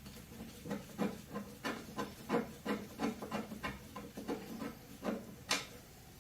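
Irregular metal knocks and taps, about fifteen of them, each with a short low ring, from the engine's oil pan being pried and tapped loose. The sharpest knock comes near the end.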